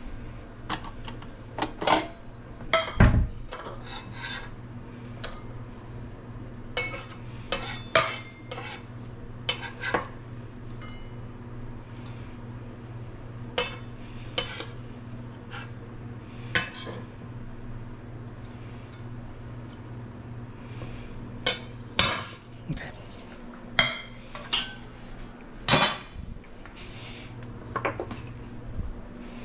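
Kitchen prep sounds: a small stainless steel bowl clinking as it comes out of a cupboard and is set down, and a chef's knife knocking on a wooden cutting board while slicing garlic cloves. Irregular sharp knocks and clinks over a steady low hum.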